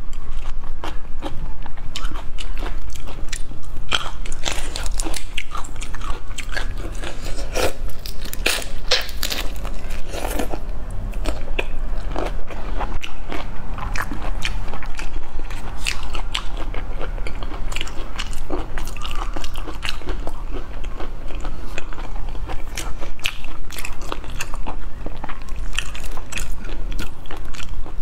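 Close-miked chewing and crunching of a large prawn, with many short, sharp crunchy clicks.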